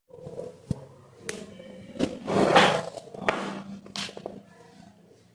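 A few sharp cracks and clicks from a chiropractic back adjustment, the spinal joints popping under manipulation, with a louder rush of noise lasting about a second near the middle.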